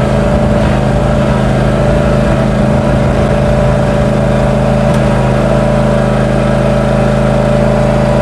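Ariens zero-turn riding mower engine running steadily at a constant speed while the mower tows a homemade chain-link-gate drag harrow.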